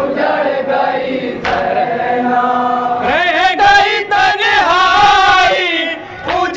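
Male voices chanting a noha, a Shia mourning lament, together in chorus. From about three seconds in, one voice leads with a long, wavering sung line.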